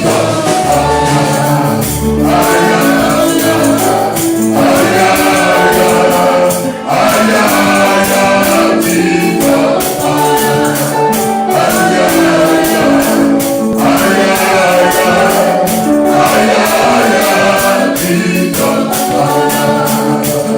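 Congregation and band in a gospel praise song: a choir of voices sings short repeated phrases over keyboard and a tambourine shaking to the beat.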